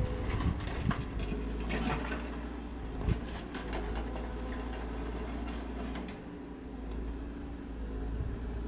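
Footsteps on a dirt and gravel trail, a soft knock roughly once a second, over a steady low rumble.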